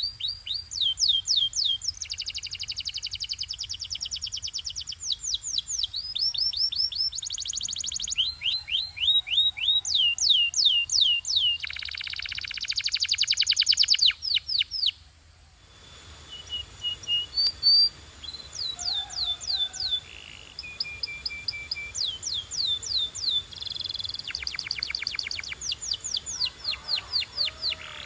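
Domestic canary singing: fast runs of repeated, high, sweeping whistled notes and rolling trills, in phrases of one to two seconds. The song breaks off briefly about fifteen seconds in, then carries on.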